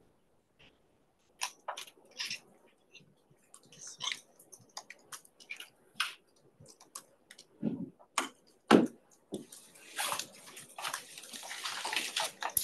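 Handling noise: irregular clicks, taps and rustling, with a louder low thump about nine seconds in and a denser stretch of rustling near the end.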